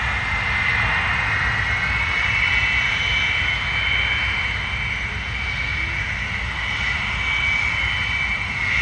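Loud aircraft engine running steadily: a high-pitched whine over a low rumble, its pitch drifting only slightly.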